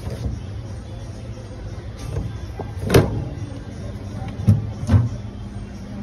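Plastic parts of a refrigerator's crisper drawer and base being handled: three sharp knocks, the loudest about halfway, two more close together near the end, over a steady low hum.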